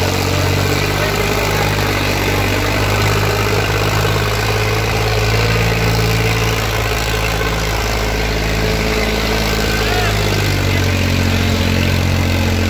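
Sonalika DI 35 tractor's diesel engine running steadily under heavy load as it drags a disc harrow dug deep into the soil. The engine note changes a little about ten seconds in.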